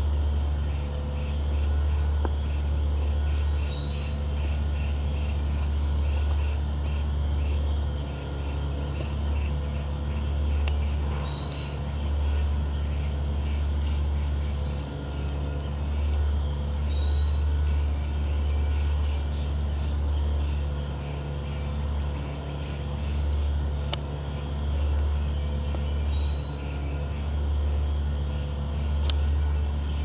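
A steady low hum with slow swells in level, like a machine running nearby. Over it, a bird gives a short high chip call several times, spaced several seconds apart.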